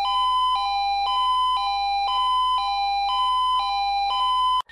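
Two-tone emergency siren, switching between a lower and a higher pitch every half second. It breaks off for an instant near the end and starts again.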